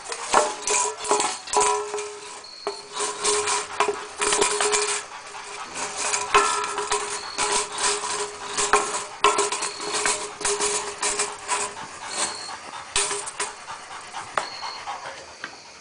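A hunting dog panting hard and scratching and clattering at a wire cage holding a raccoon, with irregular bursts of rattling throughout. A thin steady tone runs under it for long stretches.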